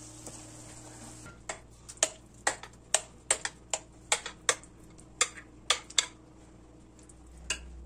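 A metal spoon clicks sharply against glass, about three clicks a second for several seconds, as thick cauliflower purée is scooped from a glass bowl into a glass baking dish. There is one more click near the end. The first second holds faint steady sizzling from a pan of frying vegetables.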